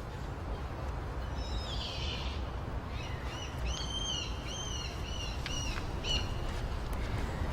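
A small bird calling: a quick chirpy burst, then a run of short, clear whistled notes that rise and fall, over a steady low outdoor rumble.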